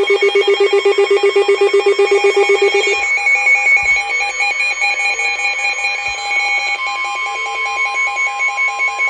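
Emergency Alert System electronic alert tones announcing a severe thunderstorm warning. A fast-pulsing low beep lasts about three seconds and then gives way to higher pulsing electronic tones in several pitches.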